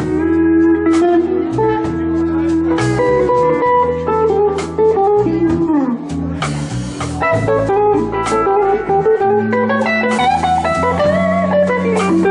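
Live band playing an instrumental passage with a blues feel: guitar lead with sliding notes over bass and drums.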